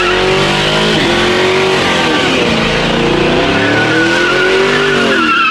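Chevrolet Camaro convertible doing a burnout: the engine revs up and down several times at high revs while the spinning rear tyres squeal, the squeal wavering at the start and again over the last two seconds.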